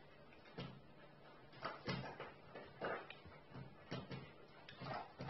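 A Cane Corso eating dry kibble from a stainless steel bowl on the floor: irregular clinks and knocks, about two a second, as its muzzle pushes the kibble and the bowl about.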